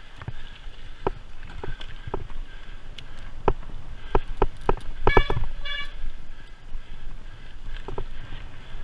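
Cyclocross bike riding fast over rough gravel and dirt: a steady rumble with irregular rattles and knocks as the bike jolts over stones. A brief high-pitched sound comes twice, about five seconds in.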